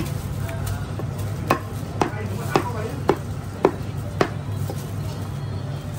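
Cleaver chopping boiled chicken on a thick round wooden chopping block: about seven sharp knocks, roughly two a second, ending a little after four seconds in, over a steady low hum.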